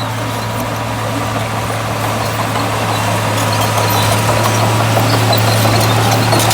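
Heavy diesel engine of earthmoving machinery running steadily with a low drone, growing slowly louder.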